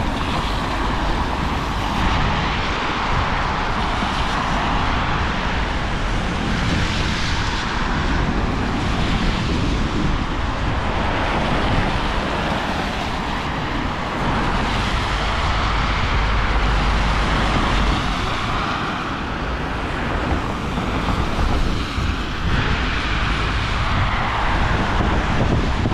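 Steady hiss of tyres on a rain-soaked road as cars and a van pass, mixed with rain and wind noise on the microphone. A heavier low rumble of wind swells about two-thirds of the way through.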